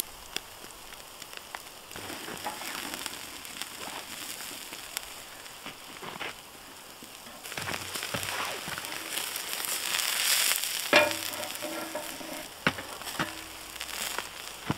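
Pieces of meat sizzling over hot charcoal in a wire grill basket: a steady hiss with small pops and crackles, growing louder in the middle. One sharp clink about three-quarters through.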